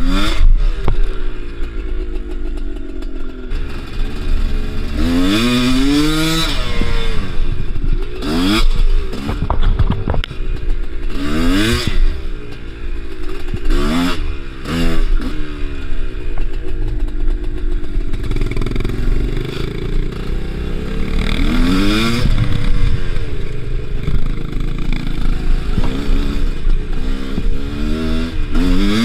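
Two-stroke Kews enduro motorcycle engine being ridden, revving up in repeated rising bursts every few seconds, with lower, uneven running between them.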